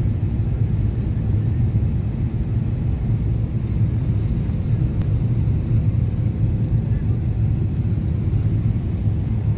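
Steady low rumble of a Boeing 777-300 in flight, heard inside the passenger cabin: engine and airflow noise through the fuselage.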